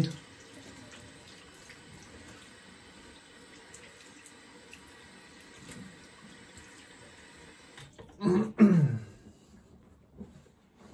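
Bathroom sink tap running steadily into the basin. About eight seconds in, a short, louder sound with a falling pitch cuts through, then it goes quiet.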